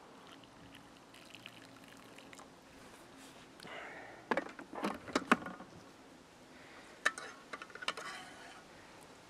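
Broth trickling faintly as it is poured from a Thermomix's stainless-steel mixing bowl onto a plate. About four seconds in, the metal bowl clatters and knocks as it is set back into the Thermomix base, followed by a few more clicks a few seconds later.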